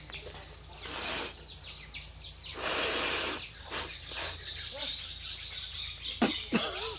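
A person blowing their nose hard: several noisy blasts of air, the longest and loudest lasting most of a second about three seconds in. Birds chirp in the background throughout.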